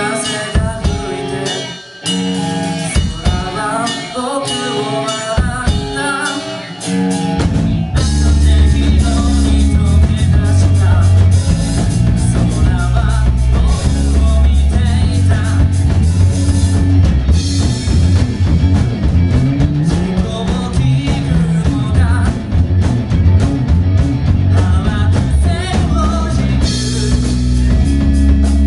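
Live rock band playing in a club, heard from within the audience: singing over electric guitar with little low end at first, then bass and drums come in about seven seconds in and the full band plays loudly with vocals on top.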